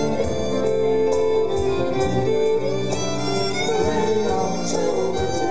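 Live folk band playing an instrumental passage, a violin carrying the melody in long bowed notes over piano.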